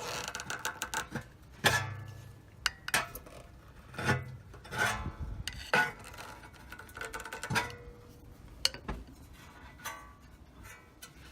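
A screwdriver knocking, prying and scraping against the sheet-metal brake dust shield behind a rear rotor: a run of sharp metallic clicks and clinks, some ringing briefly. The shield is being bent away from the rotor to open a gap, the suspected cause of a grinding noise at speed.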